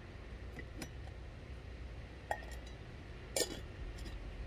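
A few light clicks and clinks, the loudest near the end, over a low steady rumble.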